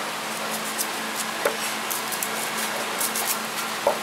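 Two soft knocks, about a second and a half in and near the end, as whole peeled onions are handled on a wooden board. Under them runs a steady kitchen background with a low hum and scattered small clicks.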